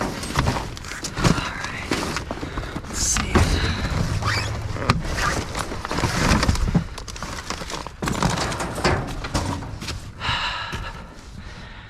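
Garage door sections being shifted and dragged about in a dumpster: irregular thuds, bangs and scraping.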